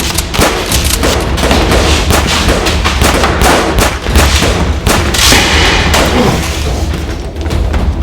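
Rapid, irregular volley of shots and thuds, several a second, from a toy foam-dart blaster fight, over a steady low rumble.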